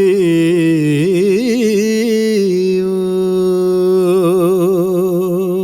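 A singer's voice holds the last note of a Punjabi sung line, with vibrato. About a second in there is a run of quick ornaments, and then the voice settles back onto one steady held note. It is a processed vocal take.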